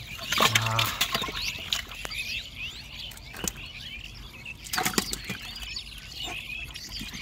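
Live catfish thrashing as they are grabbed out of a clay trap's shallow muddy water: a series of wet flapping slaps and knocks against the clay, the loudest about five seconds in.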